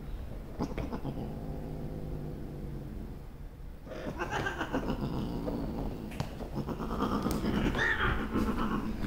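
Cat yowling during mating. A low sound gives way about four seconds in to a wavering, drawn-out cry that grows loudest near the end as the pair separate.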